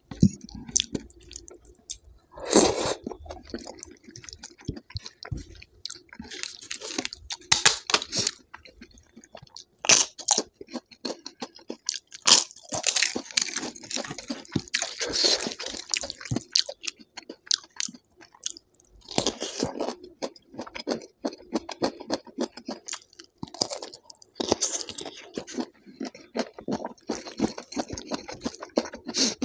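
Close-miked chewing with repeated crunching of crisp food, coming in clusters of crunches separated by short pauses.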